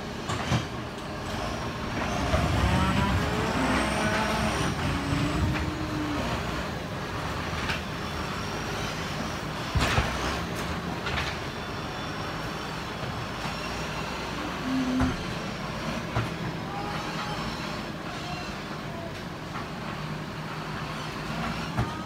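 Hyundai truck's diesel engine running with a steady rumble, growing louder about two seconds in and easing a few seconds later, with a few sharp knocks, the loudest about ten seconds in.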